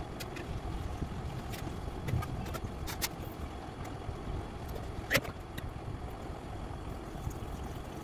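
Ballpoint pen ticking and scratching on paper in a few short strokes, the sharpest tick about five seconds in, over a steady low rumble.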